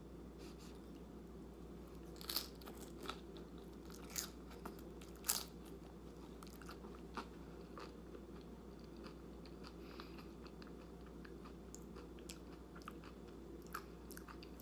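Close-up mouth sounds of a person eating a crunchy scoop of taco dip: a few loud crunching bites about two, four and five seconds in, then quieter chewing with small crunches.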